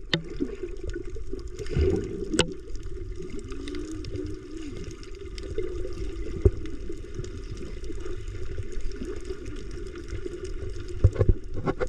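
Water gurgling and sloshing, mostly low and muffled, with a few short knocks.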